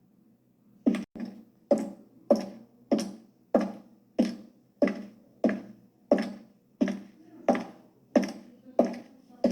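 High heels clicking on a hard floor in a steady walk, each step a sharp click with a short ringing echo. The steps start about a second in, the first two close together, then fall into an even pace of about three steps every two seconds.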